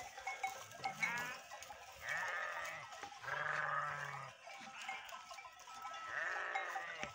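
Sheep in a grazing flock bleating: four separate calls over several seconds, the longer ones with a quavering, wavering pitch.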